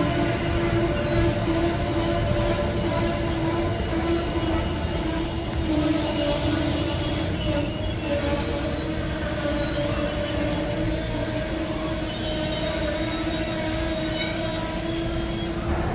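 An Amtrak train hauled by a Siemens ACS-64 electric locomotive running by, a loud steady rumble with several high tones held over it. A further high tone joins near the end.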